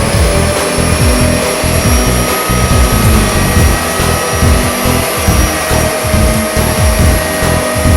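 A vacuum cleaner motor running steadily, with a constant whine, under background music with a regular low beat.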